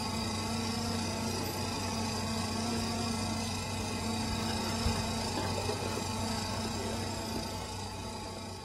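Solar tracker's electric drive motor running under TinyTracker HD control, a steady motor hum as the mount turns to orient itself toward the sun. The hum fades out near the end.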